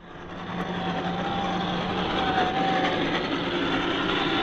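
Radio-controlled scale model truck running, a steady motor and gear whine over a hiss, fading in at the very start.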